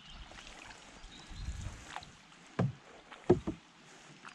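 Hollow knocks on a canoe's hull: one about two and a half seconds in, then two more in quick succession just under a second later.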